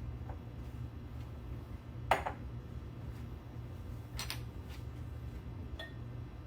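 A few light knocks and clinks of kitchen items being handled, the loudest about two seconds in, over a steady low hum.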